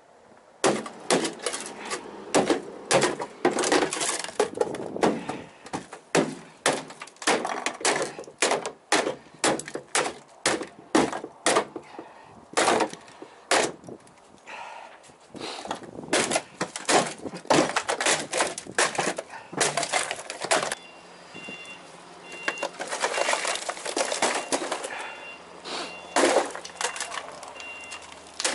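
Hammer blows smashing a painted plywood box apart, wood cracking and splintering, about two blows a second for some twenty seconds. After that comes a few seconds of denser cracking and crunching as the broken plywood is worked loose.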